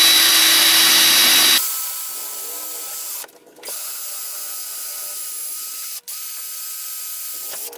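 Power tool running against a wall-adapter transformer's plastic case to cut it open: loud and steady with a high whine for about the first second and a half, then quieter and steady, cutting out briefly twice.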